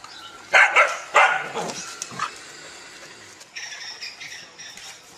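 An animal crying out: two loud short cries about half a second and a second in, then a few fainter ones.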